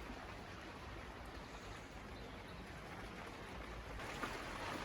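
Rain falling steadily, an even hiss with no distinct knocks or strokes.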